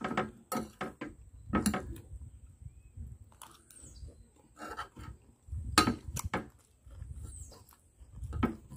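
Eating sounds: a metal spoon clinking and scraping on a china plate between mouthfuls, with chewing. There are several short sharp clicks, the loudest about two-thirds of the way through.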